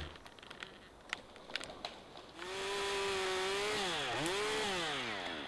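Two-stroke chainsaw running at high revs from a little before halfway through. Its engine speed dips sharply and recovers about a second later, then winds down near the end. A few faint ticks come before it.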